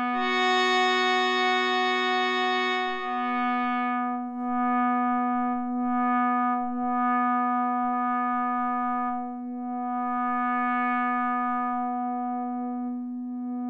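Arturia MiniFreak synthesizer in two-operator FM mode sustaining a held note, with a second note that drops out about four seconds in. Its tone dulls and brightens several times as the filter cutoff and resonance are turned.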